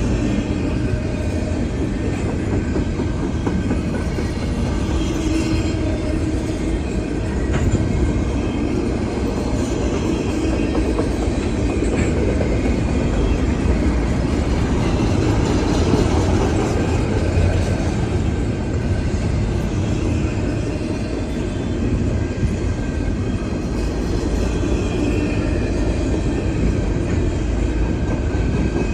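CN intermodal freight train's cars rolling past: a steady rumble of steel wheels on the rails.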